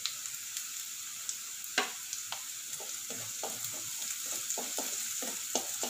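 Chopped onion frying in hot oil in a kadai, a steady sizzle, while being stirred, with repeated short scrapes and clicks of the utensil against the pan, more frequent in the second half.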